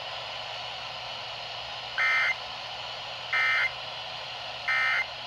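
Emergency Alert System end-of-message code: three short bursts of two-tone digital data warble, about a second apart, over steady radio hiss. They mark the end of the alert broadcast.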